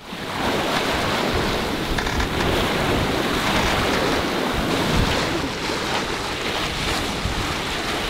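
Water rushing and splashing along the hull of a sailboat heeled over under sail in choppy water, with wind buffeting the microphone. It comes up abruptly at the start and then stays steady.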